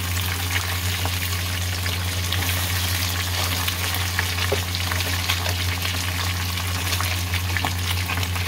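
Indian mackerel frying in hot oil: a steady dense sizzle with scattered sharp pops and crackles from the spattering oil, over a steady low hum.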